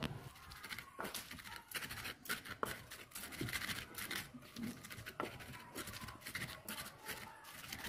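Wooden pestle (ulekan) grinding and crushing cooked chillies, tomato and salt in a terracotta mortar (cobek): faint, irregular scraping and tapping of wood on clay.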